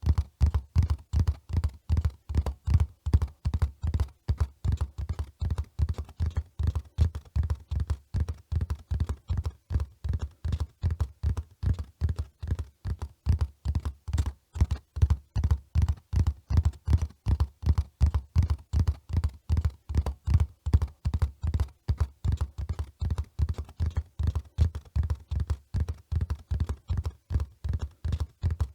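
Hoofbeats of a running horse: a steady rhythm of dull, deep thuds, several a second, without a break.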